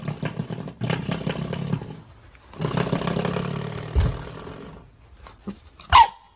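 Puppy growling in two long, low stretches, then a single short yap near the end.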